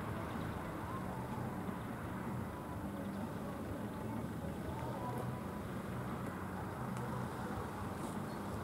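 Car engine idling steadily in front of a lowered level-crossing barrier.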